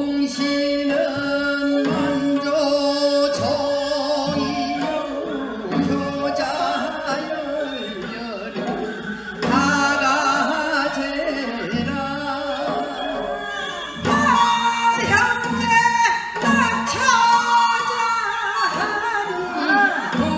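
Gyeonggi folk song (minyo) being sung, with long, sliding, ornamented vocal lines over light percussion. The music gets louder about 14 seconds in.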